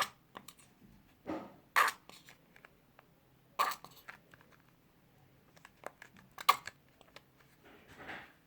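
A plastic bottle of glue being squeezed out into a bowl, giving a few short crackling, squelching bursts every second or two.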